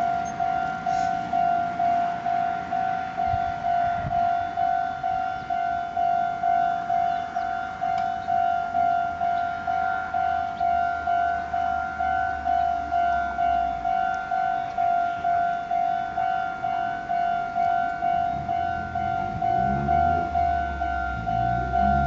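Japanese railroad-crossing electronic warning bell ringing its steady 'kan-kan' tone, pulsing a little over twice a second. Near the end, a low rising whine of an approaching electric train's motors joins in and grows louder.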